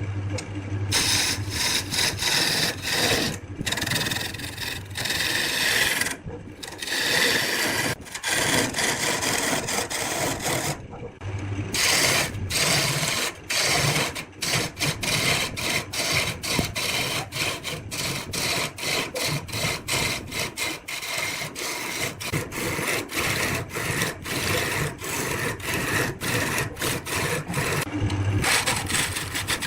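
Turning tool cutting into wood spinning on a lathe: a continuous rasping scrape, broken over and over by short pauses.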